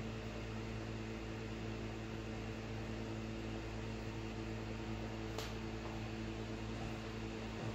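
Steady background hum, from mains or an air handler, with one faint click about five seconds in. No sound of the knife on the soap stands out.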